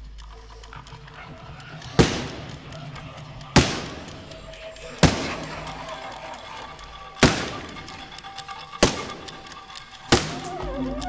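Soundtrack of loud, sharp percussive hits with long echoing tails, six of them about a second and a half apart at uneven spacing, over a low steady drone.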